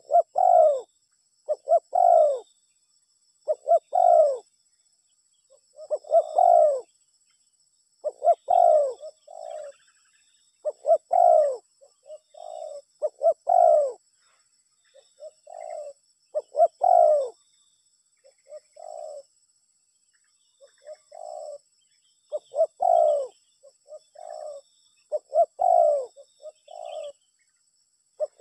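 Spotted dove (tekukur) cooing over and over, a low arching coo phrase every second or two with short gaps between phrases.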